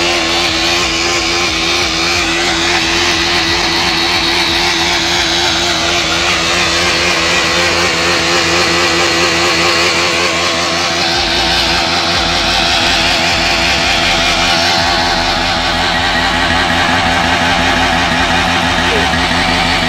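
KTM Duke motorcycle engine held at high revs in a burnout, running steadily with small rises and falls, while the spinning rear tyre screeches against the ground.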